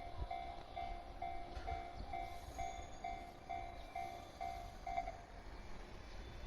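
Japanese railway level-crossing warning bell: a repeated electronic ding about twice a second, stopping about five seconds in, the sign that the train has cleared the crossing.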